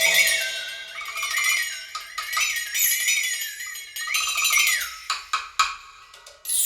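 Percussion music played through a hi-fi speaker system: wavering, ringing bell-like tones with light knocks, then a run of sharp, separate strikes near the end.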